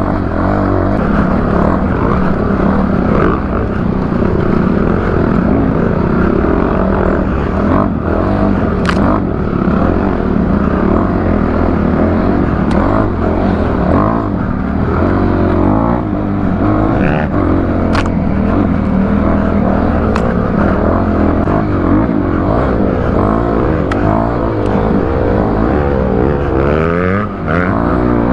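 Dirt bike engine running hard as it is ridden over rough trail, the revs rising and falling continuously, with a few sharp knocks.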